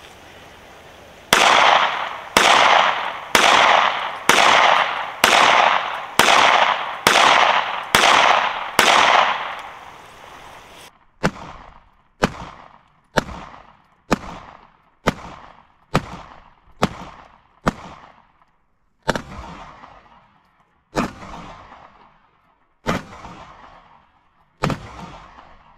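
9mm pistol fired in quick succession to empty the magazine, about one shot a second, nine loud reports each trailing off. About eleven seconds in, a second run of sharper, quieter shots follows at the same pace, then four more spaced about two seconds apart.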